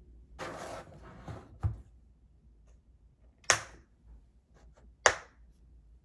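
Em1 microscope's hard plastic carrying case being handled: a short scrape and a dull thump as it is laid flat, then its two snap latches clicking open one after the other, about a second and a half apart.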